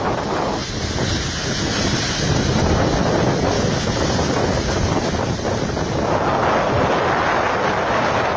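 Strong wind gusting against the microphone over the steady rush of Niagara Falls' falling water.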